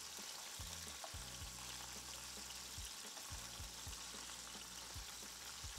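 Shrimp and sliced garlic sizzling gently in olive oil in a nonstick frying pan, a steady faint hiss. Soft knocks come from a wooden spatula and a metal spoon as the shrimp are turned over.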